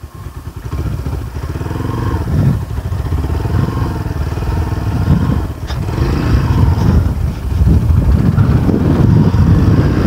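Motorcycle engine running under load, its revs rising and falling again and again over rough ground. There is one brief knock just after halfway.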